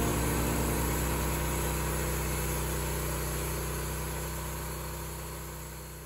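Vallee Big Red portable band sawmill running as the saw head cuts along a log: a steady engine drone that gradually fades out.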